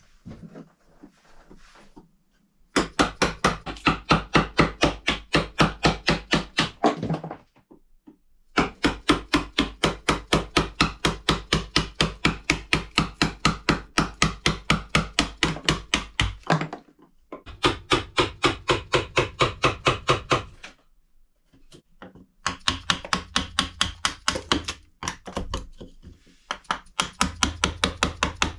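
Hammer tapping a chisel into a wooden post and log wall: rapid, evenly spaced blows at about four or five a second, in four runs broken by short pauses.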